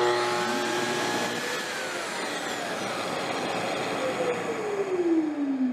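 Festool TS75 plunge-cut circular saw run free with no cut: its motor whines up to speed and then coasts down after about two seconds. A Festool CT36 dust extractor, switched on automatically by the saw, keeps up a steady rushing airflow, then shuts off about four seconds in, its whine falling steadily as the motor winds down.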